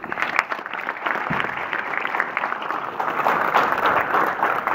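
Crowd applauding, the clapping starting suddenly and going on steadily.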